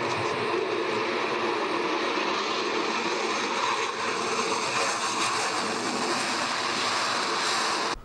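Jet noise from an F-22 Raptor's two F119 turbofan engines as it flies low past: a steady, even rushing sound with no rise or fall.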